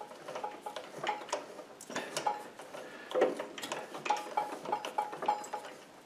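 Irregular light clicks and metallic taps as a mini lathe's chuck is turned by hand, driving a 1/8-inch BSP tap into a plastic part.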